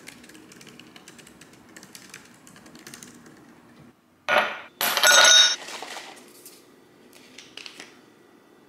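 Light clicking of typing on a laptop keyboard, then, about four seconds in, two loud clattering clinks of ice cubes dropping into a glass tumbler on a granite counter, with a few fainter clinks near the end.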